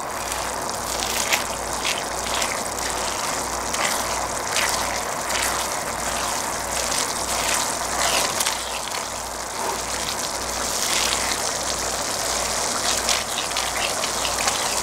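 Thick gochujang chili sauce simmering in a nonstick frying pan on a portable gas burner: a steady sizzling hiss with many small bubbles popping, stirred now and then with a silicone spatula as the sauce is reduced.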